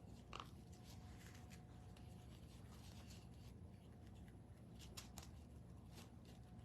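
Near silence with faint, scattered small clicks and rustles of craft materials being handled.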